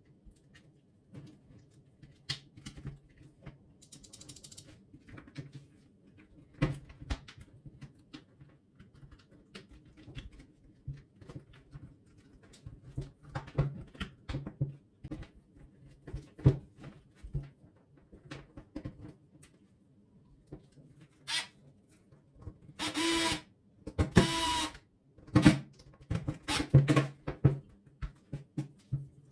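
Handling and reassembly of an electric nailer-stapler: scattered clicks, taps and knocks of plastic housing and metal parts being fitted together. About three-quarters through come two louder rasping sounds of about a second each.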